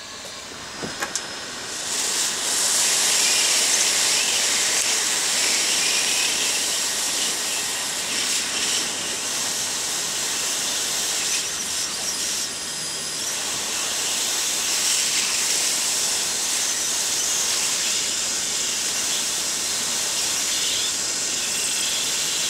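Steady hiss of a hand-held gas torch, starting about two seconds in, as it heats the gold lid of a ceramic CPU package to loosen it.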